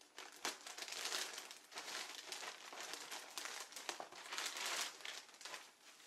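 Irregular crinkling and rustling of something being handled, with small clicks scattered through it.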